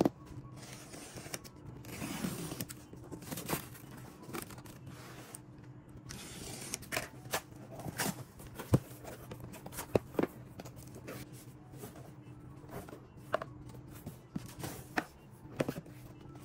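A cardboard shipping box being opened by hand: packing tape tearing and peeling off, and the cardboard flaps scraping and snapping, with scattered sharp clicks.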